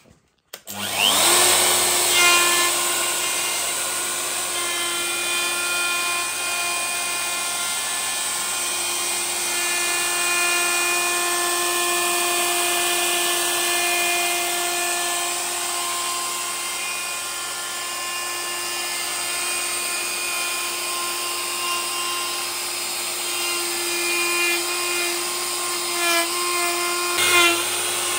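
Festool OF 1400 EBQ plunge router switched on about a second in. Its whine rises as the motor spins up, then it runs steadily while the bit routes a radiused edge in a shelf panel. There are a few short knocks near the end.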